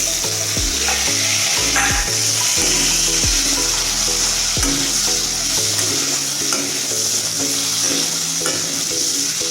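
Potato pieces frying in hot oil in a pan: a steady sizzle. Background music plays underneath.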